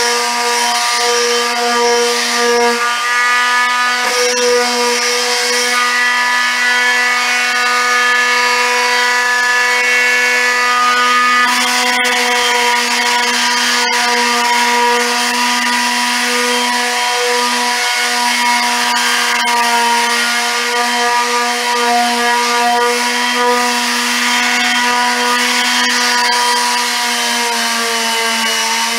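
Handheld electric orbital sander running steadily on a cabinet door, its motor giving an even whine over the rasp of the pad on the surface.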